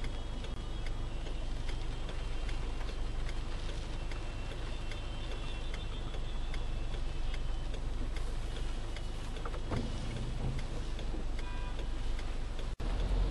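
Rain tapping on a car's windshield and roof, heard from inside the cabin as many sharp ticks over a steady low rumble of the car in slow traffic through flood water.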